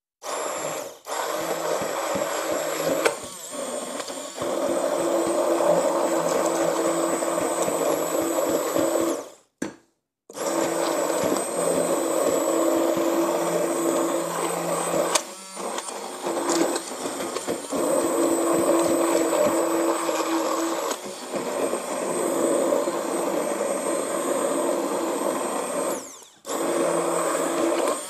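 1200 W handheld immersion blender running in a pot of thick vegetable soup, puréeing in cottage cheese. The motor hums steadily with a high whine over a churning of the soup. It cuts out for about a second around ten seconds in and again briefly near the end, then starts again.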